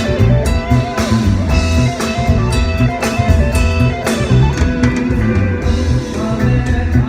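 Phin, the Isan plucked lute, playing a quick melody over a band backing of drum kit and bass with a steady beat.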